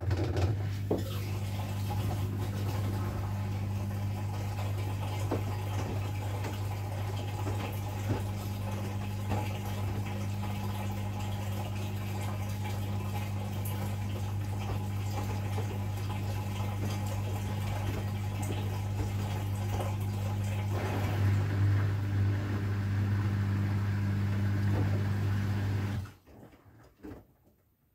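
AEG Lavamat washing machine moving water: a steady electrical hum with water rushing and gurgling through it. It gets louder and rougher about three-quarters of the way through, then stops suddenly near the end.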